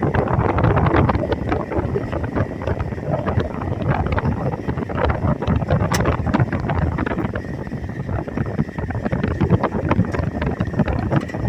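Wind buffeting the microphone over a steady vehicle rumble.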